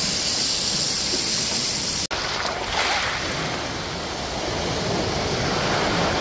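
Chicken deep-frying in a pot of oil, a steady high sizzle, which cuts off abruptly about two seconds in. It gives way to surf washing up over a rocky shore, rising and falling.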